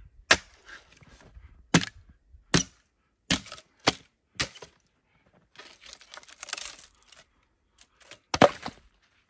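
A heavy axe splitting knotty firewood on a chopping round: six sharp knocks of the blade striking the wood in the first few seconds, then a stretch of scraping and rustling, and the loudest crack near the end.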